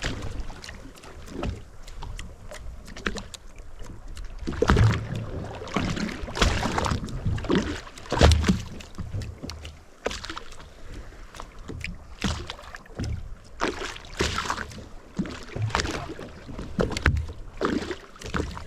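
Water slapping and sloshing irregularly against the hull of a drifting boat, with low rumbles of wind on the microphone.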